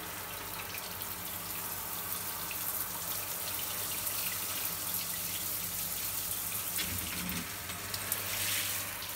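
Shower running: a steady rush of spraying water, briefly a little louder near the end.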